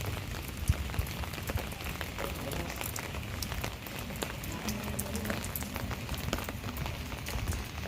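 Steady rain falling, with many separate drops ticking on nearby surfaces.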